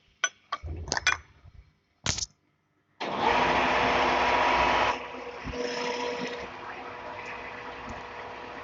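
A few sharp clicks and knocks, then a lathe running with a steady hum and whine. It is loudest for about two seconds after it starts, then settles to a lower, even running sound.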